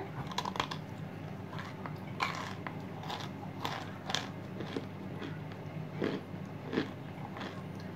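A person biting into and chewing cooled chunks of cornstarch (cornflour): a bite at the start, then irregular crunches while chewing.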